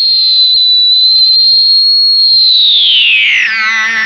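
EarthQuaker Devices Data Corrupter PLL synth pedal, fed by guitar and set three octaves up, sounding a shrill, steady high tone that slides down in pitch about two seconds in. This is the 'ew' dive the pedal is famous for, which comes from its PLL synthesis circuit.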